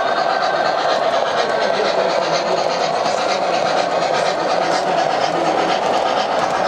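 O-gauge model freight trains rolling past close by, a steady rattle of metal wheels on the track with rapid clicking over the rail joints.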